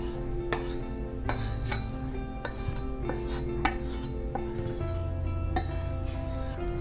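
Kitchen knife edge being stroked along a strop loaded with 2-micron compound, in quick strokes about every half second. This is the final polishing stage that refines the edge, with soft background music underneath.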